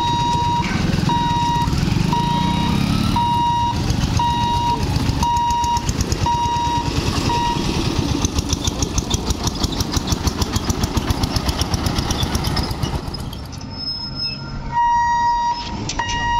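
Level-crossing warning beeper sounding a steady on-off beep about once a second over the running engines of motorcycles and other road traffic. The beeping stops about halfway, leaving a rhythmic pulsing traffic rumble, and starts again near the end as the boom barriers come down.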